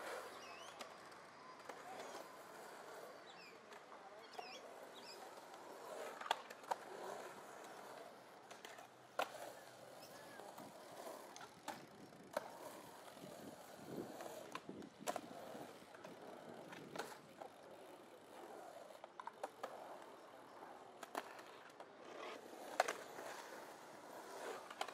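Skateboard wheels rolling over a concrete skatepark bowl, with sharp clacks of boards hitting the concrete every couple of seconds, the loudest near the end.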